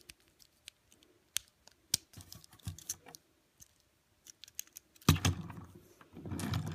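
Small sharp plastic clicks and taps as wheels are snapped onto a Hot Wheels Snap Rides Boneshaker die-cast toy car. About five seconds in, a knock as the car is set down, then its plastic wheels rumble as it rolls across a wooden table.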